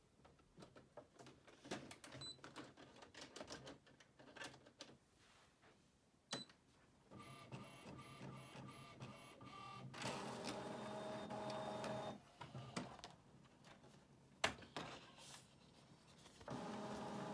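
Epson XP-970 inkjet printer drawing in a sheet of 300gsm card from its rear feeder and printing it. Small clicks and rattles come first, then motor whirring that comes and goes in passes, louder about ten seconds in and again near the end, with a sharp click in between.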